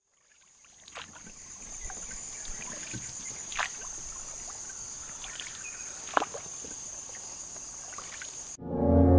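Rainforest ambience: a steady high-pitched insect drone with faint water sounds and a few sharp knocks, fading in at the start. Near the end it is cut off by music with a deep, low drone.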